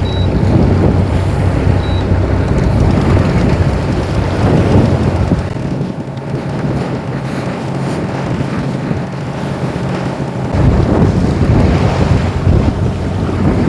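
Wind noise on the microphone aboard a fishing boat at sea, with the wash of a heavy swell beneath it. The low rumble eases off in the middle and comes back abruptly about ten seconds in.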